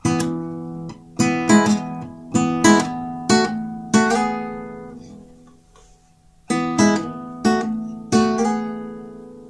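Acoustic guitar fingerpicked: two short phrases of plucked notes and two-note chords, each left to ring and die away, with a pause of about a second between the phrases.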